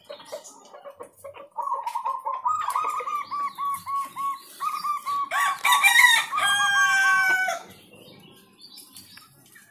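Zebra dove (perkutut) cooing: a long run of short, rolling coo notes repeated several times a second. The calls grow loudest a little past the middle and stop about 8 seconds in.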